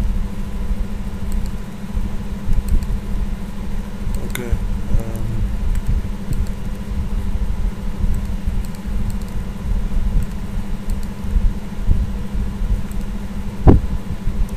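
Steady low background rumble with a couple of short clicks, one about four seconds in and a sharper one near the end.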